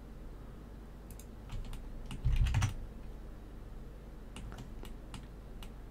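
Computer keyboard keys being pressed: scattered separate clicks, with a quick louder run of keystrokes a little over two seconds in.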